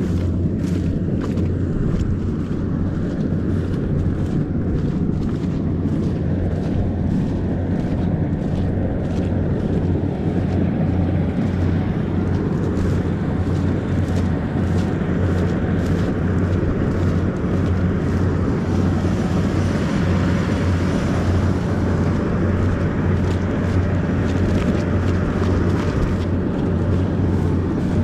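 Rice combine harvester's engine running with a steady low drone.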